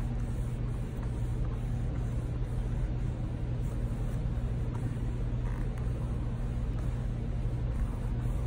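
A steady low hum with a faint, even background hiss, unchanging throughout.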